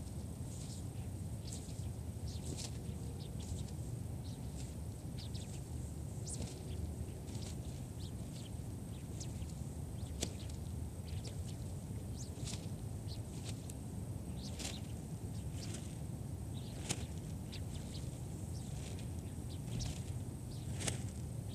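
Wind buffeting the microphone in a steady low rumble, with many short, sharp high ticks or chirps scattered through it.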